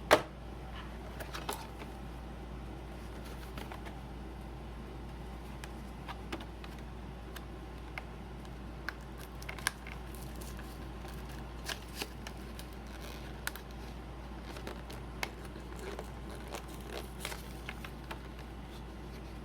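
Action-figure packaging being handled and opened: scattered clicks, taps and short crinkles of cardboard and plastic, the sharpest right at the start, over a steady low hum.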